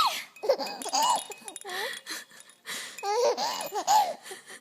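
Baby laughing in two bouts of high-pitched, squealing giggles, with a breathy burst between them.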